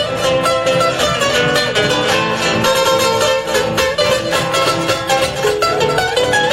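Instrumental break of an Argentine folk song: acoustic guitar strummed in a steady rhythm, with a bombo drum keeping the beat underneath.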